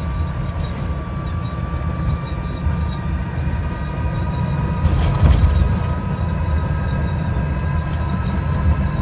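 Urban Triker electric trike riding, with a steady whine that rises slowly in pitch over a low road rumble and a brief rattle about five seconds in. The whine is the kind of abnormal noise the owner cannot identify on this trike.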